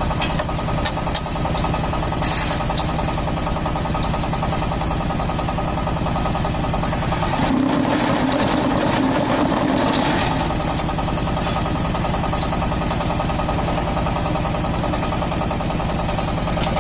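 Diesel engine driving a hydraulic block-making machine, running steadily; near the middle a louder steady hum comes in for about two and a half seconds, then drops away.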